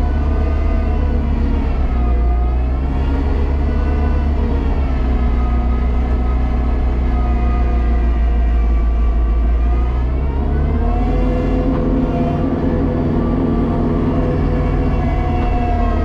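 Kubota tractor's diesel engine running at high rpm with the PTO-driven snow blower engaged and throwing snow, heard from inside the cab. The engine note dips briefly about two seconds in and shifts pitch again about ten seconds in.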